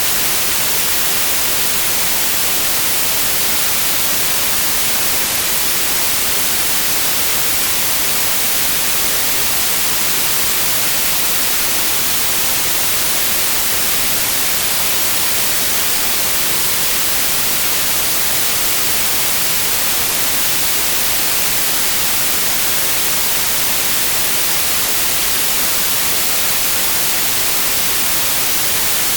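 Steady synthetic white noise, an even hiss that never changes.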